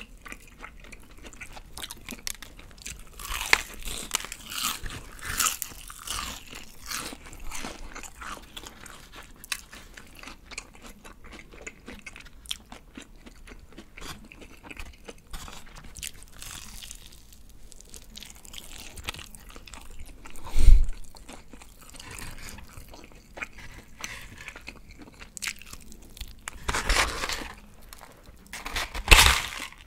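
Close-miked biting and chewing of crispy BBQ Golden Olive fried chicken, the batter crust crackling and crunching with each bite and chew. There is a single loud thump about two-thirds of the way in, and two loud bursts of crunching near the end.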